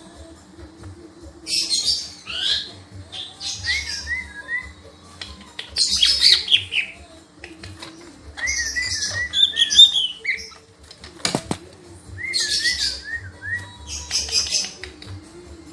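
Cica ijo (green leafbird) singing in bursts of varied phrases every couple of seconds: quick high trills and sweeping notes, with runs of wavering repeated whistles. There is a single sharp knock about eleven seconds in.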